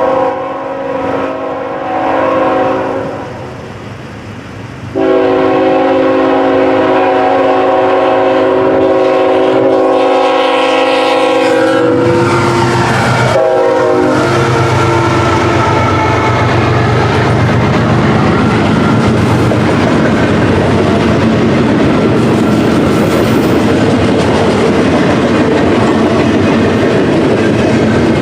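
Diesel freight locomotive horn on the lead BNSF ET44AH of an intermodal train: a blast, a long blast, then a short blast whose pitch drops as the locomotives pass. It is followed by the steady rumble and clickety-clack of the intermodal cars rolling by.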